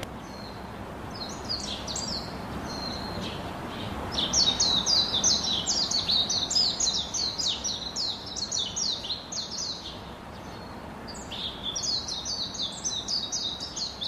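Birds chirping in rapid runs of short down-slurred notes, in three bouts with brief pauses between them, over a steady background hiss.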